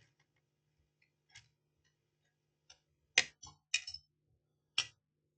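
Mostly quiet over a faint steady low hum, with a few light clicks and taps about three seconds in and again near the end.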